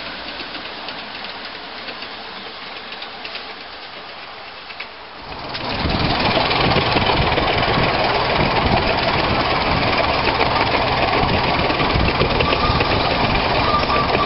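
A 7.25-inch gauge miniature steam locomotive passing some way off, then, about five seconds in, a sudden jump to loud, steady running noise heard from on board the train behind the engine. A steady high tone starts just before the end.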